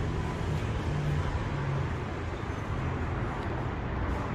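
A steady low mechanical rumble under an even hiss, with no distinct knocks or changes.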